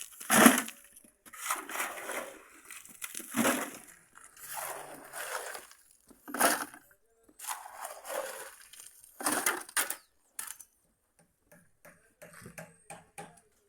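Shovel scraping and crunching through sand in repeated strokes about once a second, then a few light clicks near the end.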